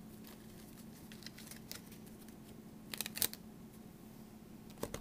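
A deck of playing cards being handled: soft clicks and rustles of the cards, with a short cluster of sharper clicks about three seconds in and another near the end, over a faint steady hum.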